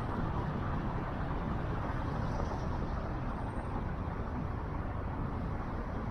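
Steady road and wind noise from a moving car, picked up by the microphone of a DJI Osmo Action action camera.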